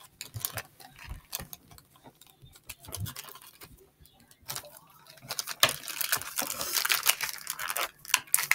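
Plastic blind-bag wrapper crinkling and crackling as it is opened and handled, scattered clicks at first, turning into a dense crinkle for the last few seconds.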